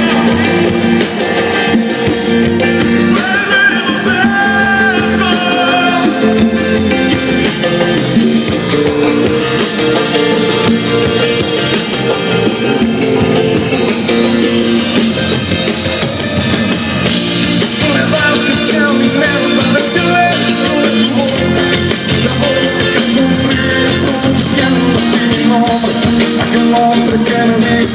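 Instrumental break of a pop-rock ballad: the full band with guitar and drums plays on without the lead vocal.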